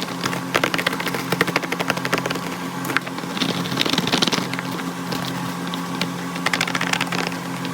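Blind-box packaging being handled and opened: rapid crackling and crinkling, busiest in a few spells, over a steady low hum.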